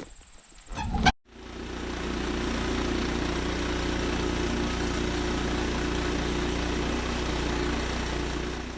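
A short knock about a second in, then a Woodland Mills HM122 sawmill's gasoline engine running steadily.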